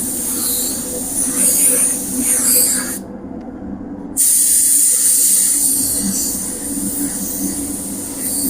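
Paint spray gun hissing as filler primer is sprayed, cutting out for about a second near the middle and then resuming, over a steady low hum.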